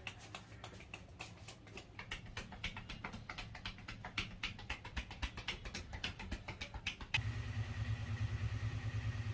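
Rapid, rhythmic slapping and tapping of hands on a head during a barber's head massage, about five strokes a second. About seven seconds in, a louder steady low motor hum with a fast pulse takes over.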